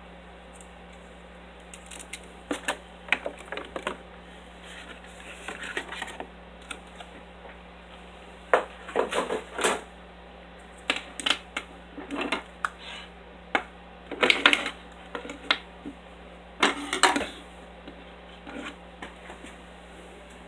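Hands handling a clear plastic clamshell package and headphones, giving irregular clusters of clicks, taps and crackles of stiff plastic, loudest in three bursts in the middle and later part. A steady low hum runs underneath.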